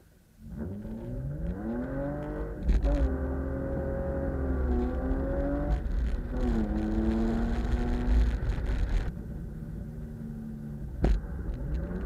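BMW E36 328i's 2.8-litre straight-six under hard driving: revs climb from about half a second in, ease off and climb again several times as the throttle is worked between bends. Two sharp knocks, one about three seconds in and one near the end.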